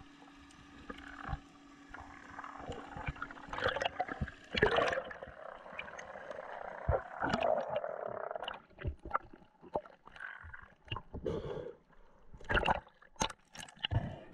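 Underwater sound through an action-camera housing as a spearfisher ascends: water movement and gurgling, with a steady low hum for the first few seconds, then many scattered sharp clicks and knocks.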